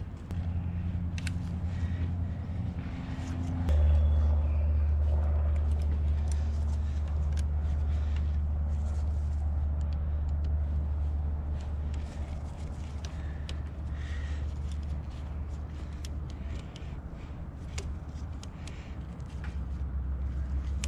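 2004 Yamaha V-Star 1100's air-cooled V-twin engine running at idle, just after its carburettors were cleaned. Its note drops lower and gets louder about four seconds in, then holds steady, with small clicks from hands working by the carburettors.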